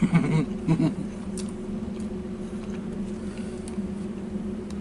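Steady machine hum with several fixed pitches, with a couple of short murmured vocal sounds in the first second and a few faint clicks.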